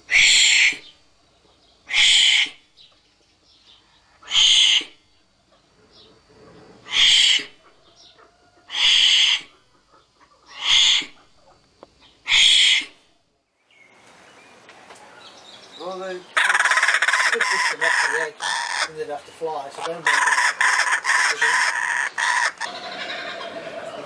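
A wombat giving seven short hissing huffs, one about every two seconds. Then a group of laughing kookaburras starts with a few rising notes and breaks into their loud cackling chorus, which dies down near the end.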